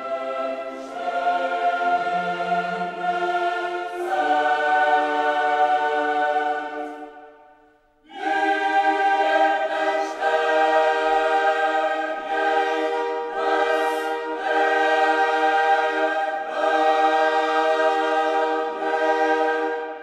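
Background classical choral music: a choir singing long held chords. The chord fades away about seven seconds in, and the choir comes back in about a second later.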